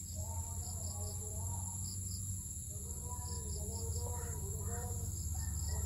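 Insects singing in a steady high-pitched chorus, with short chirps repeating in groups of two or three, over a steady low rumble. Faint wavering calls sound in the middle range.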